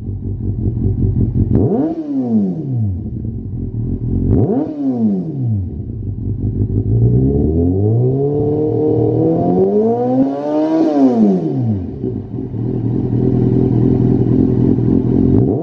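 Kawasaki Z800's inline-four idling through a Lextek RP1 aftermarket silencer, blipped sharply twice, at about 2 s and 4.5 s. It is then revved up more slowly from about 7 s, held, pushed higher near 11 s, and drops back to idle.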